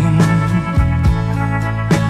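Pop ballad recording in an instrumental gap between sung lines: sustained backing chords over a steady drum beat.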